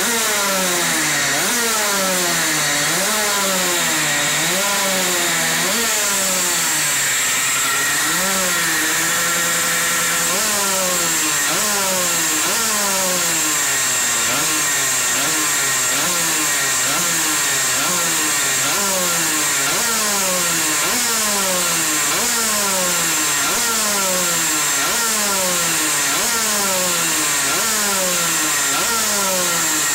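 50cc two-stroke Derbi engine running through a variable-length trombone exhaust, revved over and over: the pitch jumps up and sags back down about once a second, held steady for a couple of seconds about a third of the way in.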